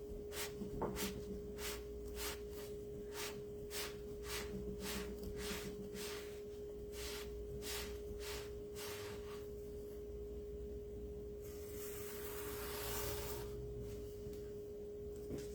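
Cloth wiped quickly back and forth over a surface to dry it, about two to three strokes a second, stopping about nine seconds in. A hiss of about two seconds follows, with a steady high hum throughout.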